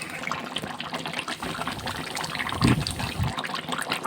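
Water running and trickling, with two low thuds a little past halfway.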